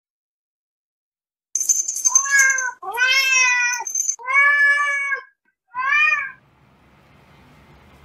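Domestic cat meowing four times in quick succession, each a drawn-out call that bends in pitch, the last one shorter; a high steady tone sounds over the first meow.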